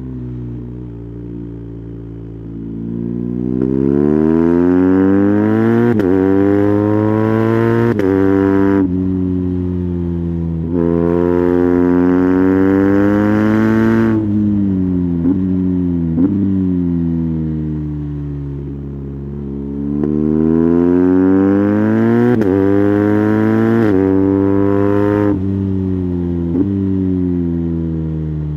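BMW R 1250 GS boxer-twin engine through an SC Project titanium slip-on exhaust, accelerating hard three times with the revs climbing through upshifts. Each run cuts off sharply as the throttle closes, and the pitch then falls away on the overrun, with a few short cracks as it slows.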